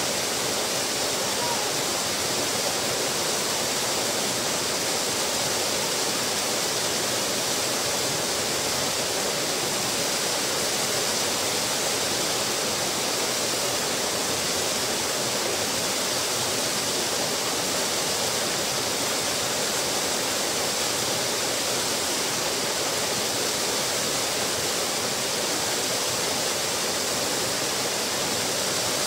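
Small waterfall pouring over a rock ledge into a pool: a steady, even splashing rush of water.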